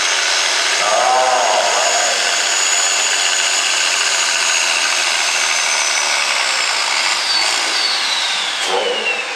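Farm stock diesel tractor pulling a sled at full throttle: a loud, steady engine note with a high whistle over it. Over the last couple of seconds the whistle falls in pitch as the tractor comes to a stop at the end of its pull.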